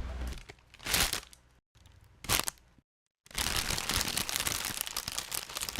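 Raw recordings of a plastic bag being rustled, played as separate clips: three short crinkling bursts with silent gaps between them, then a longer stretch of crackling rustle from about three seconds in.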